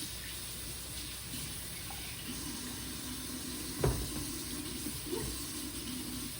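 Kitchen sink tap running steadily while hands are washed under it, with a single knock a little past halfway.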